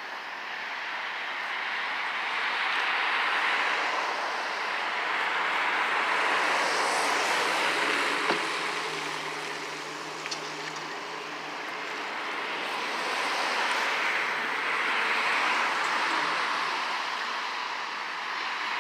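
Derecho storm winds gusting, a rushing noise that swells and eases in waves every few seconds. A sharp knock about eight seconds in and a smaller one near ten seconds, with a faint low hum through the middle.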